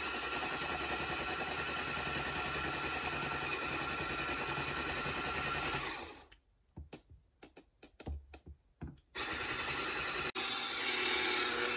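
Electric stick blender motor running steadily as it blends pancake batter. It stops about six seconds in, a few soft knocks follow, then it starts again about three seconds later and keeps running.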